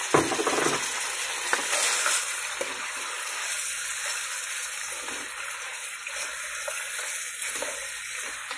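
Goat-meat (mutton) pieces sizzling as they brown in oil in a nonstick wok, with a metal spoon scraping and stirring them. There is a loud scrape right at the start and lighter scrapes after it.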